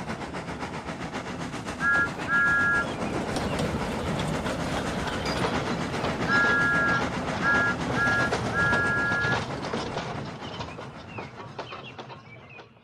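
Steam tank engine running with a steady chuffing rattle. Its two-note whistle gives two short toots about two seconds in, then a longer toot, two short ones and another longer one in the middle. The running sound fades away near the end.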